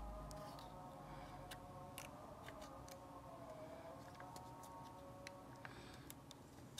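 Faint, scattered sharp clicks of a plastic attachment comb being pressed and snapped onto the blade of a Moser 1400 hair clipper, which is switched off.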